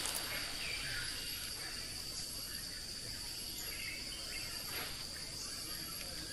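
Steady drone of insects with a thin, unbroken high tone, mixed with a few faint short chirps.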